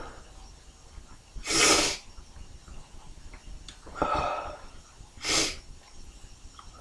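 Sneezing: three loud, short sneeze bursts, about one and a half, four and five and a half seconds in.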